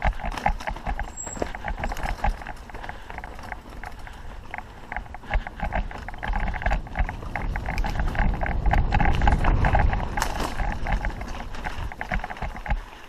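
Mountain bike riding over a dirt trail: a constant irregular clatter of knocks and rattles from the bike over rough ground, with a low rumble that swells about two-thirds of the way through.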